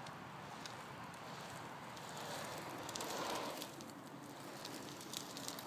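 Trikke three-wheeled carving scooter's small wheels rolling over rough asphalt: a steady crackling hiss with faint clicks. It swells for about a second and a half partway through, then settles back.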